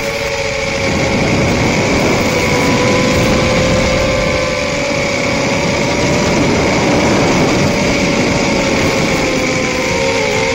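RekonFPV Rekon 3 quadcopter's motors and propellers droning steadily at cruise throttle over a constant hiss. The pitch wavers briefly near the end as the throttle changes.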